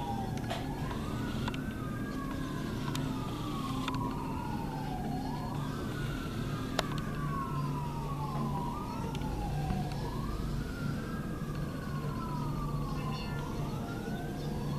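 A siren wailing, its pitch rising quickly and then sliding slowly down, about every four and a half seconds, over a steady low engine hum.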